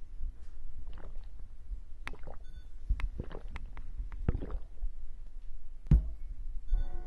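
A man gulping a drink from a metal chalice: a run of quick swallows with small clicks, then one sharp knock near the end.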